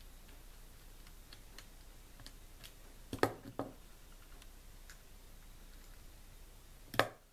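Faint metal ticks of a screwdriver turning a small screw into the diaphragm cover plate of a Stihl MS250 chainsaw carburetor. About three seconds in there is a louder double knock, and a sharper single knock near the end, as the screwdriver and parts are handled on the workbench.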